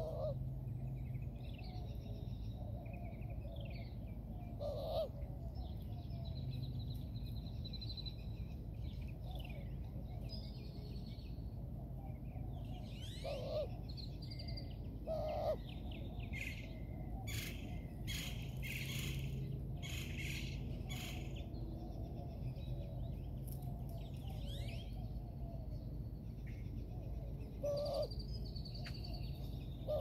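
Mixed calls of a flock of feeding birds: a steady run of chirps and short gliding whistles, a few brief lower calls, and a cluster of sharp, noisy calls about halfway through, over a steady low background hum.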